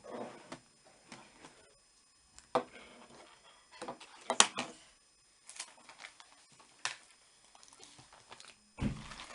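Scattered small clicks, taps and knocks of objects being handled, the loudest a quick cluster of clicks about halfway through and a dull thump near the end.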